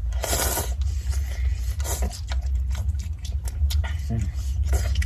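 Eating noodles from a bowl with chopsticks: a short noisy slurp just after the start, then a run of small clicks and scrapes of chopsticks on the bowl, over a steady low hum.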